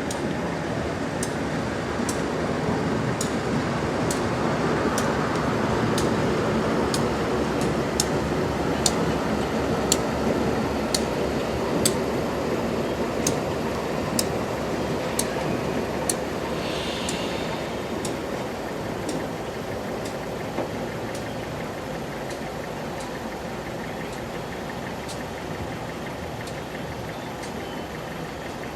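Freight train rolling past, its wheels clicking over rail joints about once a second. The rumble swells, then fades away as the train moves off.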